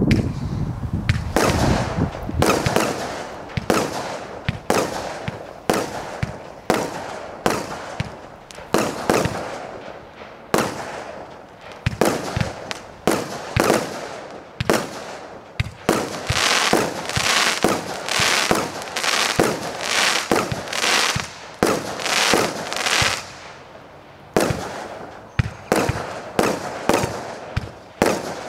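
Zeus Fireworks Icon 209-shot compound cake firing: a rapid string of shots, about two to three a second, each tube launching and bursting into stars, with the reports running close together in a denser stretch in the middle.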